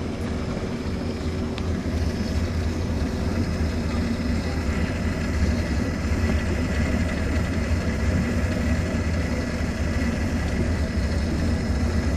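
Motorboat engine running steadily: a low drone under a wash of water and wind noise.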